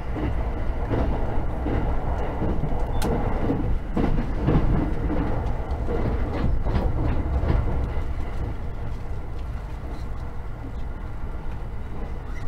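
Running noise of a JR 683 series electric train at speed, heard from inside a passenger car: a steady deep rumble of wheels on rails with irregular clacks and knocks from the track. The knocks come thickly for the first eight seconds or so, then the ride settles to a smoother, slightly quieter rumble.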